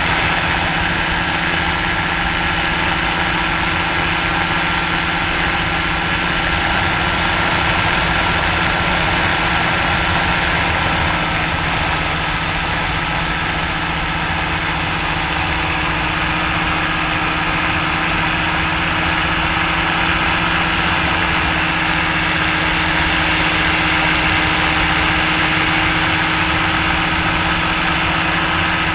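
Ultralight trike's engine running steadily in flight, its drone mixed with wind rushing over the microphone.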